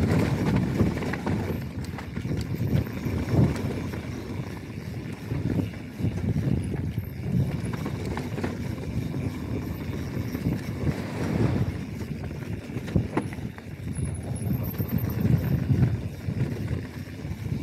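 Mountain bike riding fast down a rocky dirt trail: tyres rolling over dirt and stones, with irregular knocks and rattles from the bike as it hits rocks and roots, over a low rumble of wind and ground noise.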